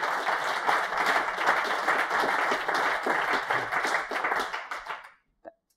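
Audience applauding, the clapping thinning out and stopping about five seconds in.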